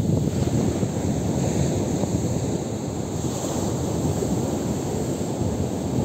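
Ocean surf breaking and washing up a sand beach as a steady rush, with wind buffeting the microphone.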